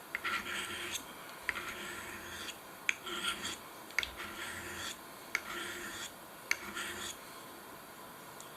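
Steel penknife blade drawn slowly across a diamond sharpening stone, about six even strokes roughly a second apart, each starting with a small click as the edge meets the stone, then stopping near the end.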